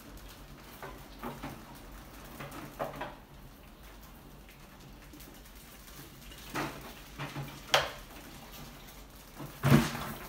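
Rats scrabbling over a wire-mesh trap lid and a wooden ramp: scattered clicks and light metallic rattles from claws and bodies on the mesh, with a louder knock and rattle near the end.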